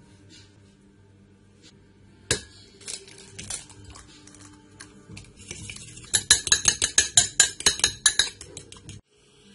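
A metal fork whisking egg in a ceramic bowl: a fast run of sharp clinks of metal on ceramic, about seven a second, starting about six seconds in. Before it come a few separate knocks and clinks of dishes.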